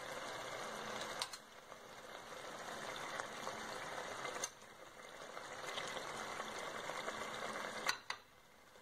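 Tomato and yogurt masala sizzling and bubbling in oil in a pot as fish steaks are laid on top, with a few sharp clicks.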